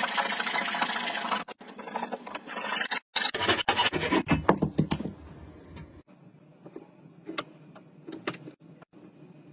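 Hand tools working wood in several short edited-together shots: a dense, fast scraping for the first second and a half, heavier scraping and knocks from about three to five seconds in, then a few light taps.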